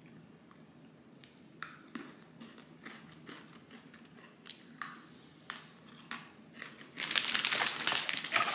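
Plastic snack wrapper crinkling: scattered small crackles and clicks, then a loud stretch of dense crinkling about seven seconds in.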